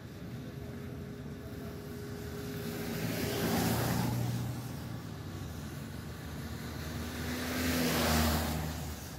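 Two cars passing along the street one after the other, each rising and then fading: the first is loudest about three and a half seconds in, the second near the end. Both pass over a steady background hum of traffic.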